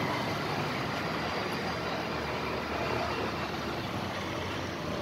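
Steady background rumble of road traffic, an even noise without distinct events.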